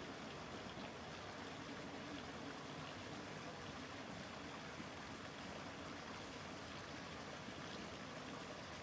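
Quiet room tone: a faint, steady hiss with no distinct sounds.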